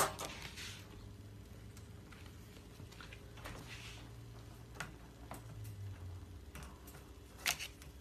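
A few faint, sharp clicks and light scratching over a steady low hum, the loudest click near the end.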